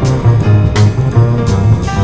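Background music: an upbeat instrumental with a plucked bass line, guitar and a steady drum beat.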